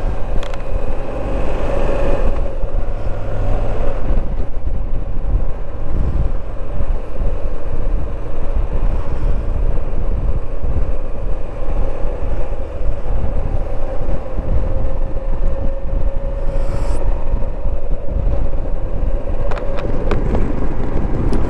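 Moto Guzzi V85TT's air-cooled V-twin running at a steady cruise, with heavy wind buffeting on the microphone from a strong crosswind.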